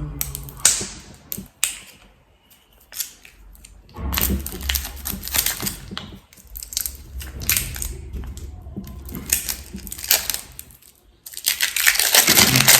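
Packaging being opened by hand: rustling, crinkling and tearing of wrapping with a few sharp clicks, in stretches that grow louder near the end.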